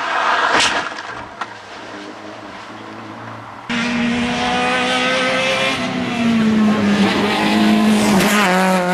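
A rally car's engine dying away after passing, then, after a sudden cut, another rally car approaching at high revs, its engine note climbing and held high, with brief dips near the end as it shifts.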